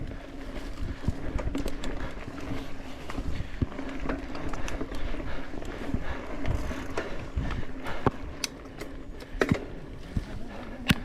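Mountain bike rolling along a dirt trail: a steady tyre hum and rumble, with many scattered clicks and knocks from the bike rattling over the ground.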